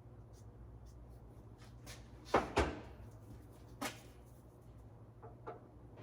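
Hard objects knocked and set down: two sharp knocks close together, another about a second later and two light taps near the end, over a low steady hum.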